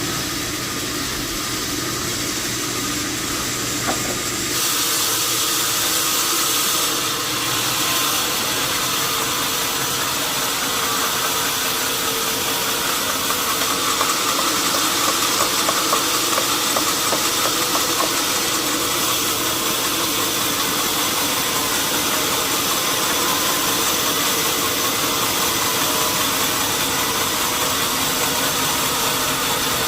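Sawmill machinery running with a steady mechanical drone; about four seconds in, a louder hiss sets in and holds, as of the saw working through a large log.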